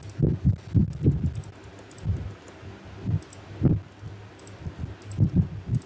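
Computer keyboard and mouse in use at a desk: irregular keystrokes and clicks. They come as short, dull low thuds, several a second, some with a light sharp click on top.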